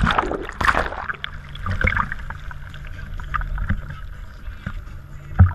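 Sea water splashing over a GoPro at the surface, loudest in the first second, then choppy sloshing and lapping against the camera, over the steady low hum of the idling dive boat's engine. A sharp thump comes just before the end.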